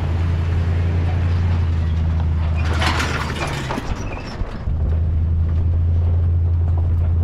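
A steady low machine hum. About three seconds in, a second-long burst of hissing noise rises over it, and the hum dips briefly before it resumes.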